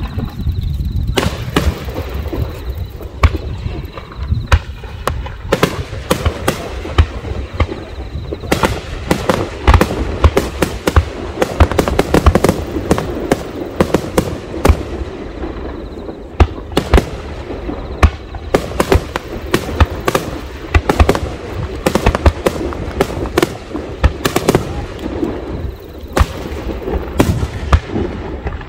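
Aerial fireworks barrage: shells launching and bursting in quick succession, a dense, irregular run of sharp bangs and crackles over a low rumble.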